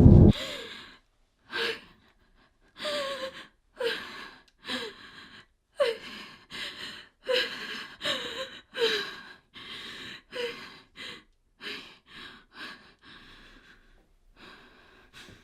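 A person breathing in a run of sharp, ragged gasps, roughly one a second, several with a short falling whimper in the voice. This is panicked, frightened breathing.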